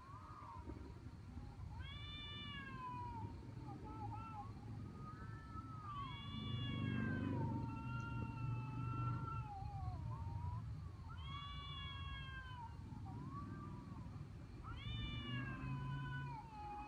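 A domestic cat meowing again and again: long, drawn-out meows that rise and fall in pitch, one every few seconds, with shorter calls between them, over a steady low background hum.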